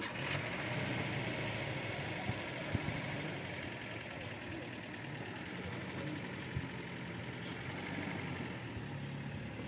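Vehicle engine idling steadily, with a few faint knocks.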